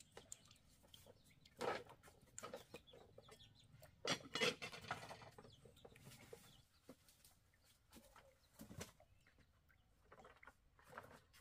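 Chickens clucking faintly, with a few short sudden sounds scattered through, the loudest about two, four and nine seconds in.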